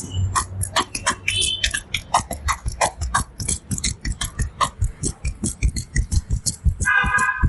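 Fast percussive massage strokes: a barber's hands slapping and tapping on a client in a steady rhythm of about five strikes a second, each a dull thud with a sharp slap on top. Near the end a brief high tone cuts in.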